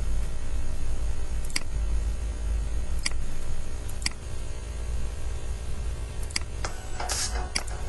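Computer mouse clicking now and then, single sharp clicks a second or more apart, over a steady low hum. Near the end come several quicker clicks and a short hissy burst.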